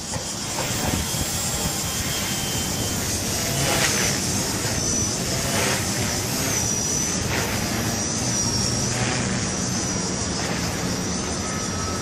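Walkera V120D02S electric micro RC helicopter whining in flight. Its high motor and rotor pitch dips and recovers about once a second as the load changes, over a steady low rumble.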